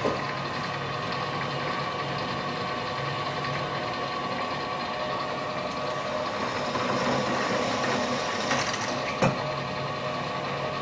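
Bench drill press running steadily, its motor and spindle giving a constant hum with a faint high whine, while a plastic sunglass lens is worked at the bit. A single short knock comes about nine seconds in.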